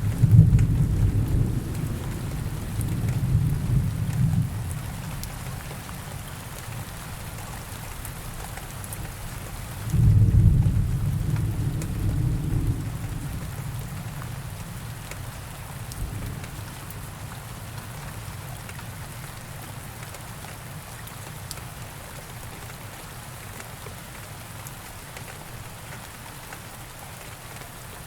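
Thunderstorm: steady rain falling, with two rolls of low thunder, one at the start and another about ten seconds in, each rumbling and fading away over several seconds.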